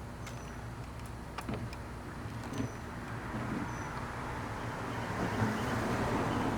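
Steady low hum of a running vehicle, growing a little louder near the end, with a few faint clicks.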